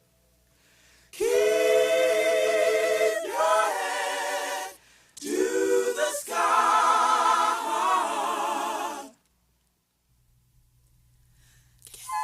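A cappella vocal group singing long held, vibrato-laden notes in two phrases separated by brief pauses, with another phrase starting near the end.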